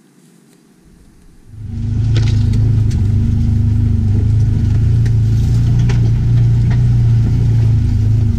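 Side-by-side off-road vehicle's engine running steadily under way, starting loud about a second and a half in, with occasional knocks and rattles.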